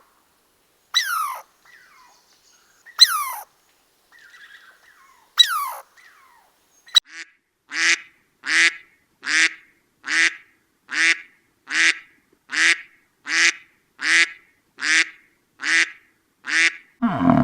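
A few high yelps that fall steeply in pitch, from a dog. Then, after an abrupt cut about seven seconds in, a duck quacks steadily, about a dozen evenly spaced quacks, one every second or less.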